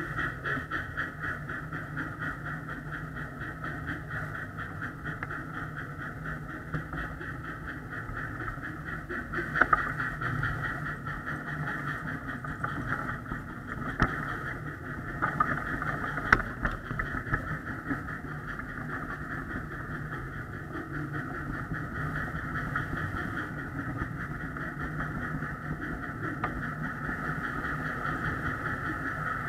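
A backyard ride-on miniature train running steadily, with a rapid, even pulsing sound throughout and a few sharp knocks about ten, fourteen and sixteen seconds in.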